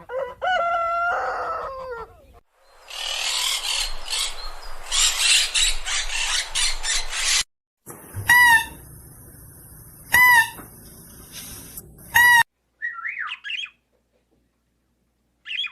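A rooster crowing once, about two seconds long, falling at the end. Then about four seconds of rough, crackling noise, three short sharp calls about two seconds apart, and a few faint chirps near the end.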